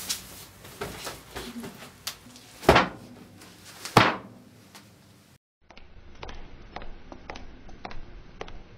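Rustling and handling noises with two loud thumps, about three and four seconds in. After a cut, a run of light clicks like footsteps on pavement.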